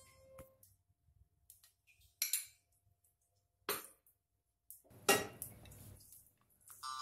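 A few short, scattered clinks and knocks of kitchenware, a spoon and a nonstick frying pan on a gas stove, the loudest and longest about five seconds in.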